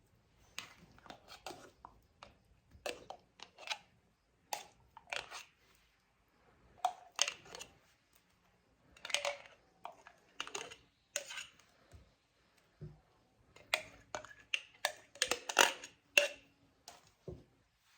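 Irregular short clicks and scrapes of a kitchen utensil working hot fudge onto an ice cream cake, busiest near the end.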